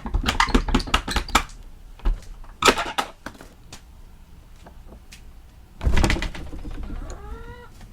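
A slide-lock basement door being unlocked and opened: a run of metal clicks and rattles, a sharp knock a few seconds in, and a scrape about six seconds in. Chickens call near the end.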